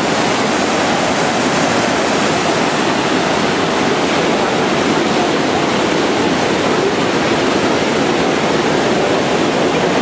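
Water pouring down a wall into a shallow stream, a loud steady rush with no breaks.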